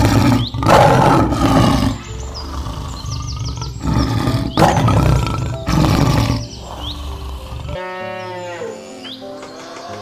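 Male lion roaring: three loud roars in the first six or so seconds, with background music and bird chirps under them.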